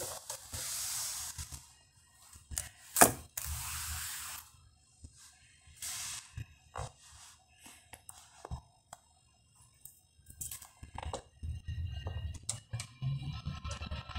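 Intermittent bursts of hiss and scattered clicks and knocks, one sharp click about three seconds in the loudest. Near the end comes a quicker run of clicks as the car stereo's volume knob is turned.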